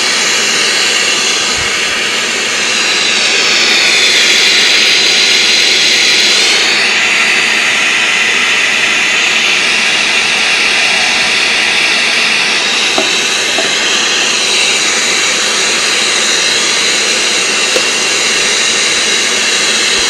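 Loud, steady hiss of TV static from an untuned channel, played through the small speaker of a Sony Mega Watchman pocket TV with the volume turned up. It swells a little louder for a few seconds near the start, then holds steady.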